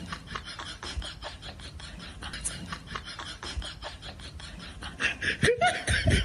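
Rapid scratchy rubbing, about five strokes a second, from a cat's paws batting at a mirror and scrabbling on a wooden floor. It grows louder near the end, with a short cry that bends in pitch.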